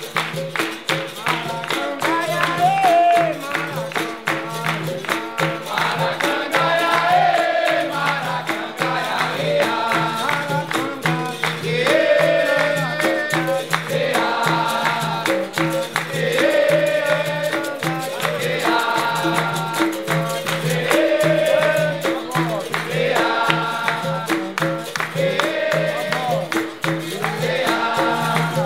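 Capoeira roda music: a group chorus singing in call-and-response, answering in short phrases about every two seconds. Under it run berimbaus playing a steady pulsing note and pandeiro-style percussion.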